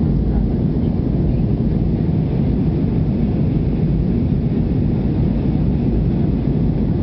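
Steady low drone of engine and airflow noise inside an Airbus A320 cabin during the climb after takeoff.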